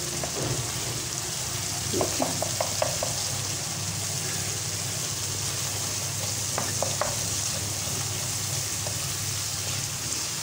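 Spice masala sizzling as it fries in a non-stick kadai with butter melting into it, while a wooden spoon stirs and scrapes it round the pan. A few quick clicks of the spoon against the pan come about two seconds in and again near the middle.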